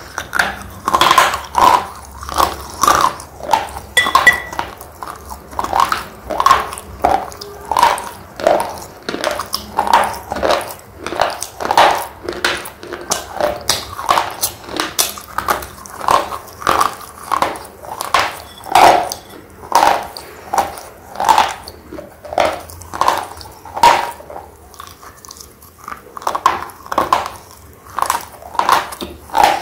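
Thick red slate pencil being bitten and chewed close to the mouth: a steady run of sharp, loud crunches about two a second, with a short pause about three-quarters of the way through.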